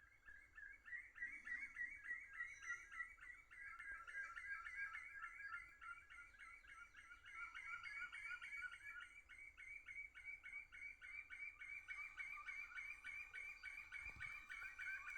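Forest ambience: a steady, rapidly repeating high chirping keeps up throughout, with a soft low knock near the end.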